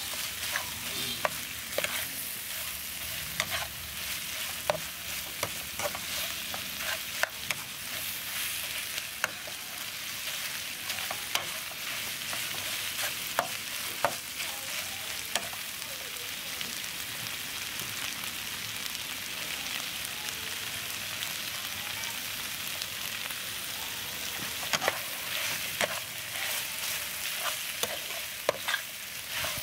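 Steel spatula scraping and clacking against a wok as chopped cow eyeballs in chili paste are stir-fried, with a steady sizzle throughout and irregular sharp clicks from the spatula striking the pan, more of them near the end.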